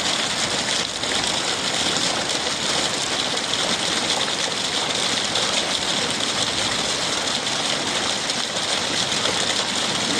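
Rainwater running and splashing steadily from a roof gutter.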